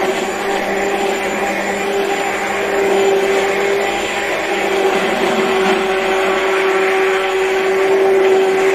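Hand-held immersion blender running steadily, submerged in a pot of warm milk and blending it for homemade yogurt. Its motor holds one steady pitch over a constant whirring hiss.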